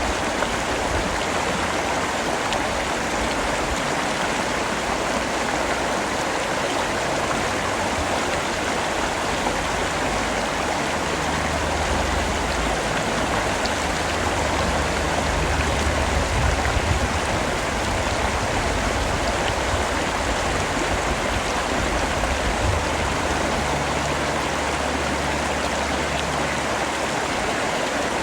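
Steady, heavy rain falling: a constant dense hiss with no separate drops standing out. A low rumble swells underneath in the middle and again near the end.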